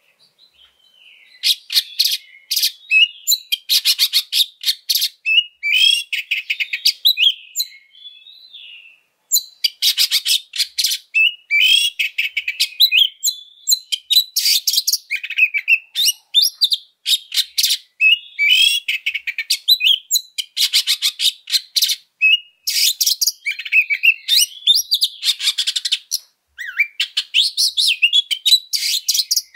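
Oriental magpie-robin singing a loud, varied song of fast buzzy trills and whistled gliding phrases, in short bursts with brief pauses and one longer break about nine seconds in. This is the harsh, persistent 'fighting' song packed with borrowed phrases that keepers call full isian.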